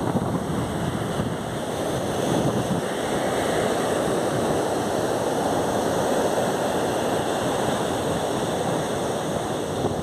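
Surf washing onto a beach, a steady rush that swells a little in the middle, with wind buffeting the microphone.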